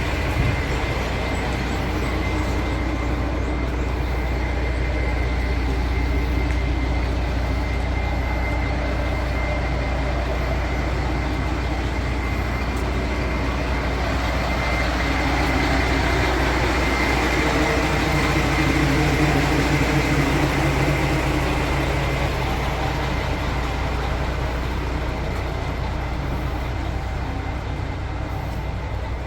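Diesel railcar heard from inside the passenger cabin while under way: a steady low engine drone with rail running noise and a thin steady whine. The engine note rises and grows louder about halfway through, then eases off toward the end.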